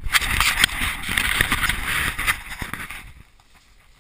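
Dry fallen leaves rustling and crunching right against a body-worn camera as it tumbles through a leaf pile, with rubbing and a few knocks on the microphone. The noise dies down about two and a half seconds in.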